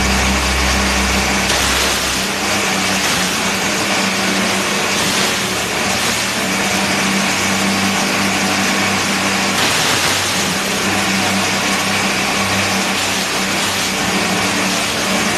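Small engine running steadily under load, driving an M200 forage chopper as cassava stalks and leaves are fed in and shredded.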